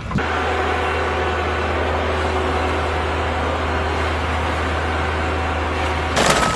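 A machine engine running at a steady speed with a constant low hum, then a sudden loud burst of noise near the end.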